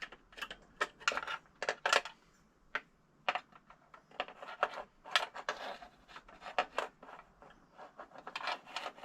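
Irregular clicks, taps and short scrapes of metal against plastic as a small pry bar works the wire loom loose inside a VFD housing.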